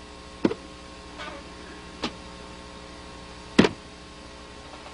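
Three sharp clicks about a second and a half apart over a steady electrical hum.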